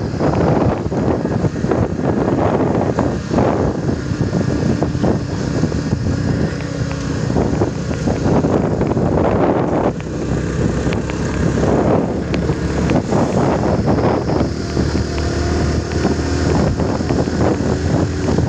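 Wind buffeting the microphone of a moving motorcycle, with the steady hum of its engine underneath.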